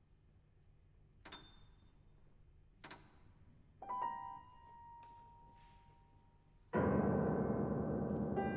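Steinway grand piano played sparsely: two single high notes, each struck sharply and left ringing, then a few notes about four seconds in that hold. Near the end comes a loud, dense chord reaching deep into the bass, left to ring and slowly fade.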